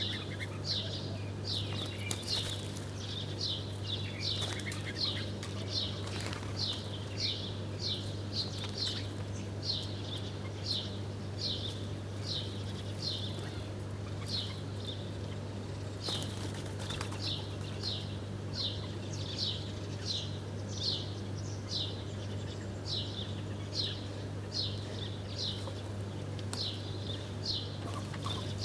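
A small bird chirping over and over, short downward-sliding chirps about two a second, over a steady low hum.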